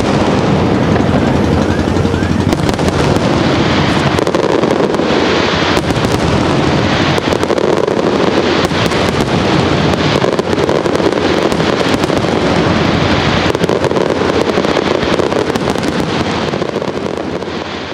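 Fireworks display in full barrage: many shells bursting at once in dense, rapid bangs and crackling over a continuous din, dying away near the end.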